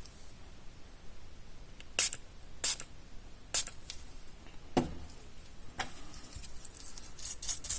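Isopropyl alcohol being sprayed onto an opened car key fob's circuit board: five short hissing sprays about a second apart, then a quicker run of short scratchy strokes near the end.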